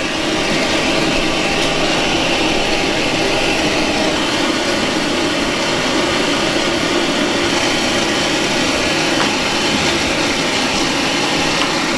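Hose-type pet grooming blow dryer running steadily, blowing air through a large dog's wet coat: a constant rushing of air at an even level.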